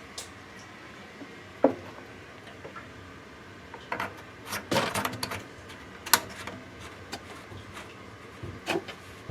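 Scattered clicks and light knocks of faucet parts being handled, with a short burst of rattling clicks about four to five seconds in and sharp single clicks near two and six seconds.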